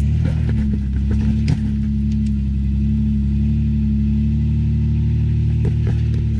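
Fifth-generation Toyota 4Runner engine running steadily at low revs while crawling over rock, with a sharp knock about a second and a half in and a few fainter clicks.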